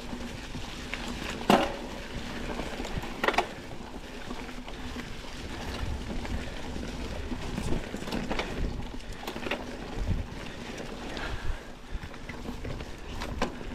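Mountain bike climbing a trail covered in fallen leaves: tyres rolling over leaves and dirt in a steady rustle, with sharp knocks and rattles from the bike several times, the loudest about a second and a half in.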